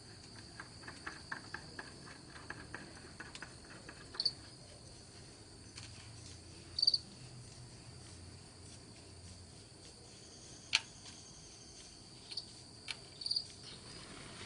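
Crickets chirring steadily and faintly in the background, with light clicks and taps of hand work, a quick run of them in the first few seconds and then a few scattered ones.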